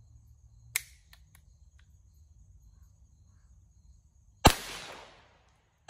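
Kel-Tec P17 .22 LR pistol firing a single shot about four and a half seconds in, the crack trailing off in a short echo, with a second shot at the very end. Before the shot, one sharp click and a few lighter clicks from the pistol being handled.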